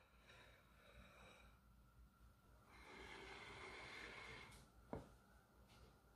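Near silence: a faint hiss for about two seconds midway, and one light click about five seconds in.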